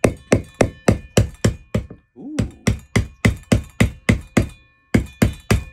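A Stanley claw hammer repeatedly striking the handle of a screwdriver to drive it into the eye of a coconut, about three blows a second in three quick runs with short pauses, each blow a sharp knock with a faint metallic ring.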